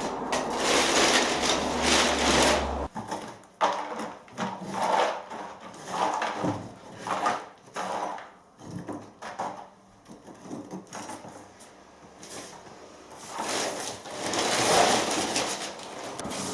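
Old wooden laths and plaster being pried off and broken up by hand: irregular scraping, cracking and knocking of wood, loudest in the first few seconds and again near the end.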